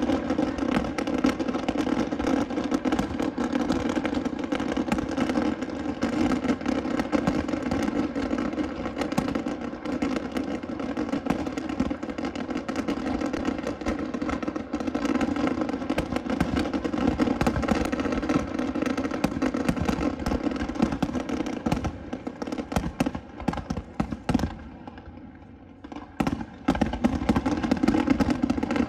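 A fireworks finale barrage: a dense, continuous volley of bangs and crackles. Near the end it thins out briefly, then heavy bursts resume.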